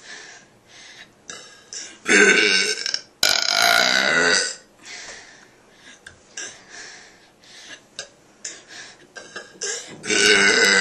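A person burping loudly: two long burps back to back about two seconds in, and another long burp starting near the end, with quieter breathing sounds between.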